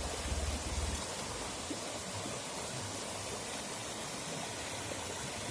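Steady, even hiss of outdoor background noise after the Jeep's engine has stopped, with a low rumble that fades out about a second in.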